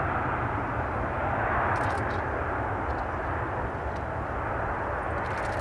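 Boeing 787-9 airliner's jet engines running steadily as it turns away onto the runway for takeoff: an even rushing noise over a low rumble.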